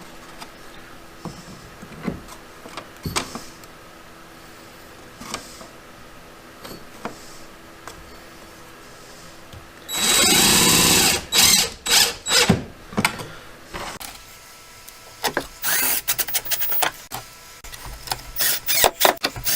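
Power screwdriver driving a screw into the kayak: one run of about a second, then several short bursts as the screw is seated. Scattered knocks before it and a quick series of clicks and knocks near the end.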